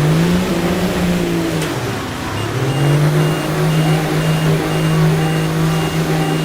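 A vehicle engine revs up and holds, drops back about two seconds in, then revs up again and holds steady. A faint high beep repeats about twice a second alongside it.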